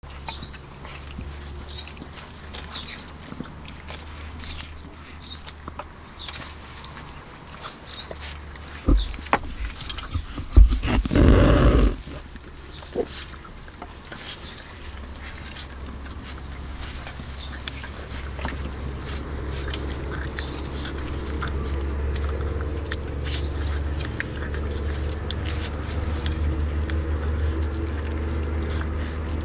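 Border Collie puppies gnawing and chewing on a large raw butcher's bone, with scattered clicks and crunches of teeth on bone. High chirps recur about every second, and a loud burst of noise comes about eleven seconds in.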